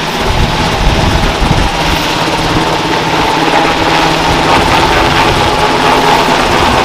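UH-60L Black Hawk helicopter's rotor and twin turboshaft engines running loud, with the blades beating over a steady turbine whine, as it lifts and climbs away carrying a water-filled Bambi Bucket.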